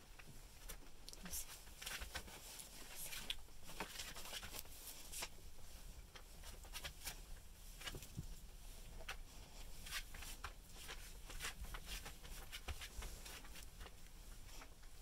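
Livestock guardian dog puppies moving about on a tarp: faint, irregular clicks, scratches and rustles of small paws and claws.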